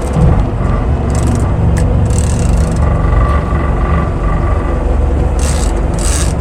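Fishing boat's engine running under power, picking up sharply at the start and then holding steady, with short bursts of rushing noise near the end.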